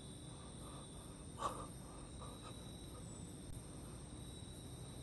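Faint, steady high-pitched chirring of night insects such as crickets, with one brief louder sound about a second and a half in.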